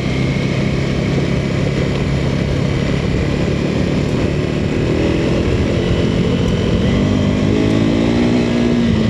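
Motorcycle engine running under way on a dirt road, over a steady rushing noise; about two-thirds of the way in the engine note rises as the bike speeds up.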